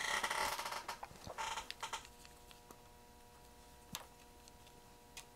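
Small electronic parts, resistors, being picked through by hand in a plastic tray: a rustling clatter of light clicks for about two seconds, then quieter, with two single sharp clicks later on as a part is handled. A faint steady hum stays underneath.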